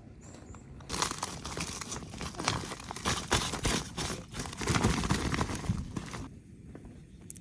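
Crinkling and rustling of something being handled, full of small crackles. It starts about a second in and stops about six seconds in.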